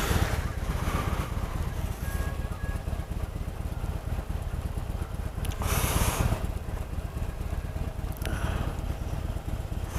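Harley-Davidson Sportster 883's air-cooled V-twin idling steadily, with brief rushes of hiss over it, the loudest about six seconds in.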